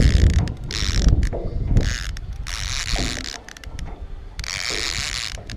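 Fishing reel clicking like a ratchet in about four bursts, each half a second to a second long, over a low wind rumble on the microphone that is strongest in the first second.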